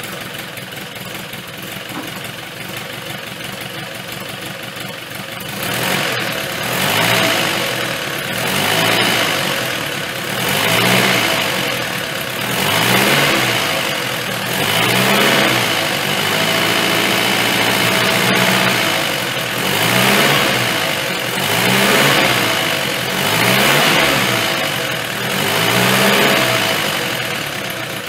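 Land Rover Series 1 four-cylinder petrol engine, fitted with a new carburettor and retimed, idling steadily for a few seconds and then revved up and let fall again and again, about every two seconds, through its exhaust silencer.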